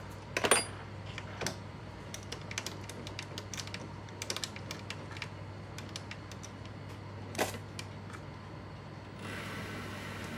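Sharp metallic clicks and clinks of tools and parts being handled at a small metal lathe over a steady low hum, with louder knocks just under a second in and about seven seconds in. About nine seconds in the lathe spindle starts and the four-jaw chuck runs with a steady whir.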